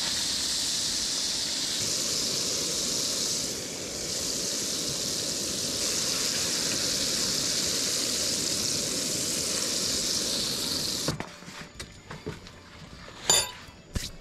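Breaded fish fillets deep-frying in hot peanut oil in a frying pan, a steady sizzling hiss that cuts off suddenly about eleven seconds in. After it, a few faint clicks and one sharp knock near the end.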